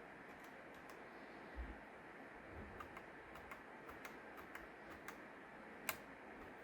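Scattered, irregular clicks of keys on a mechanical keyboard with brown switches, about a dozen over the stretch, one sharper click near the end, with a soft low bump about one and a half seconds in.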